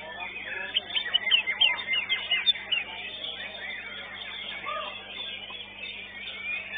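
Caged contest songbirds singing: a fast run of sharp whistled notes and short chirps, loudest and densest in the first half, then sparser chirping.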